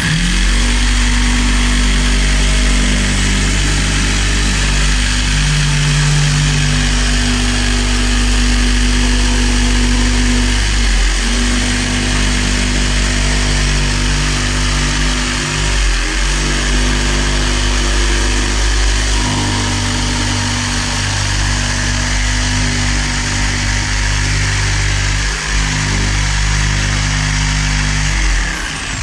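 Corded jigsaw cutting quarter-inch plywood, its motor and blade running steadily with a couple of brief dips, then winding down near the end.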